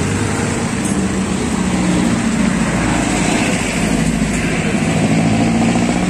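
Motorcycle engine idling steadily, a low even hum.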